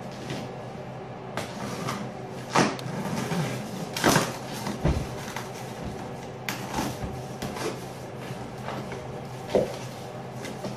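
A cardboard shipping box being cut open and its flaps pulled back: irregular scraping and rustling of cardboard and tape, with a few sharp knocks, the loudest a few seconds in and near the end.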